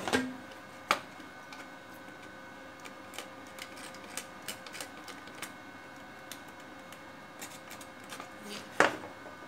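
Scattered small clicks and taps of tools and a circuit board being handled on a wooden table while a wire jumper is fitted to the power-supply board, with a sharper knock about a second in and another near the end, over a faint steady hum.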